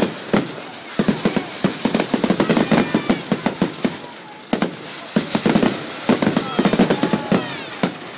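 Fireworks display going off: rapid crackling bangs and pops in dense volleys, with whistling fireworks gliding in pitch about three seconds in and again near seven seconds.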